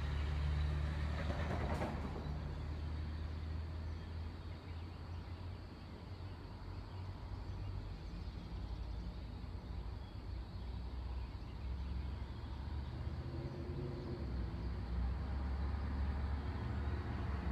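Low rumble of distant vehicles, swelling near the start, easing off, then building again toward the end, with a brief hiss about a second and a half in.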